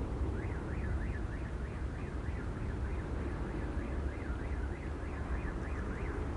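Electronic warbling alarm or siren, its pitch sweeping up and down between two and three times a second. It starts just after the beginning and stops about six seconds in, over a steady low rumble.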